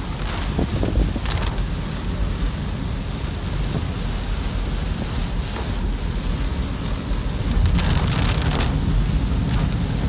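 Car driving on a rain-soaked road in heavy typhoon rain, heard from inside the cabin: a steady low rumble of the car and tyres under a hiss of rain and water spray. Short, louder hissing bursts come about a second in and again from about eight seconds in.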